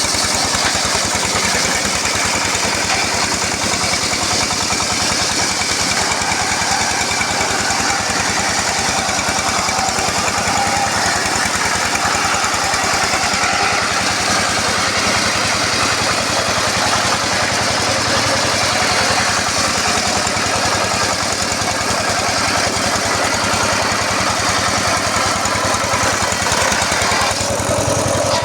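Engine-driven circular sawmill running steadily, its blade sawing through a teak log, with the engine's hum under the dense noise of the cut. The sound shifts near the end.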